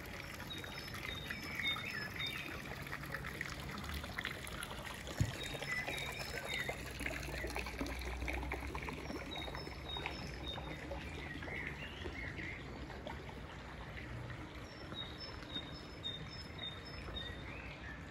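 Fountain water splashing and trickling into a stone basin. Over it a small songbird repeats a short song of four or five high, evenly spaced notes every few seconds, and there is a single sharp knock about five seconds in.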